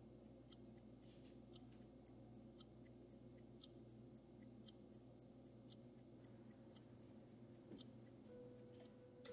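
Light, evenly spaced ticking clicks, about four a second, over a faint low hum; the clicks stop shortly before the end.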